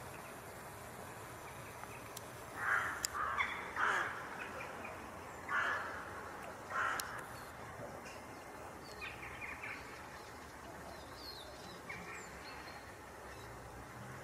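Several short animal calls, three close together about two to four seconds in and two more a little later, with a few fainter ones near the end.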